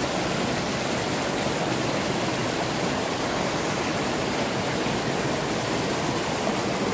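Water of a small rocky mountain stream rushing steadily over and between boulders, a continuous even noise.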